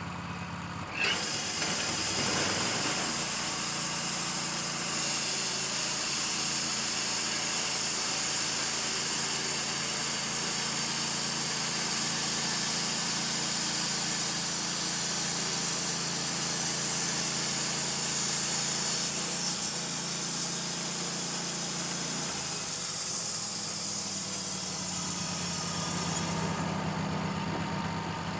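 Wood-Mizer LT-15 band sawmill running steadily with a high hiss, its band blade sawing through a small spruce log. The sound steps up about a second in, and near the end the hiss drops away, leaving the motor running at idle.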